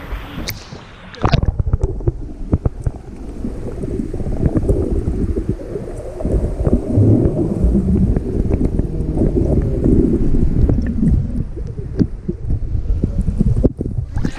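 A splash, then a muffled low rumbling and gurgling of moving water with small knocks, as heard by a camera microphone underwater. The clearer, fuller sound returns near the end as it comes back above the surface.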